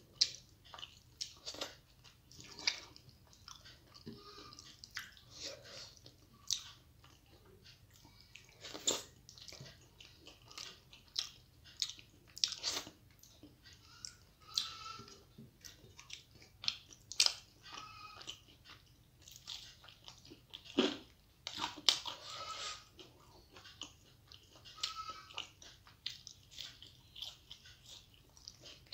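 Close-miked chewing and lip-smacking of a person eating rice and dal with her fingers: irregular wet clicks and smacks, a few louder than the rest.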